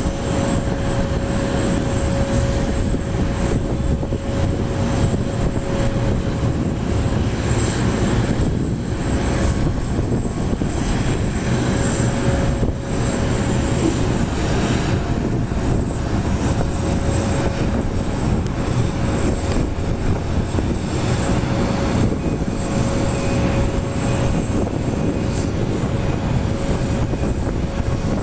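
Airbus A330 jet airliner whining steadily over a low rumble as it is pushed back from the gate.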